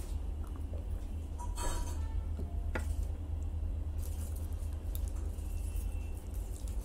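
A drinking glass is set down on the table with a clink about two seconds in. From about four seconds in, aluminium foil crinkles as a wrapped roll is handled. Both sit over a steady low hum.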